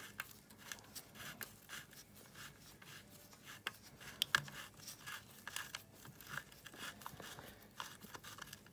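Faint scattered clicks and rustling of gloved hands and a small hand tool working the screws of a pocket bike's air filter housing.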